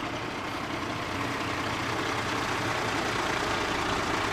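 Dennis Sabre fire engine's diesel engine running as the truck rolls slowly forward, growing steadily louder as it comes closer.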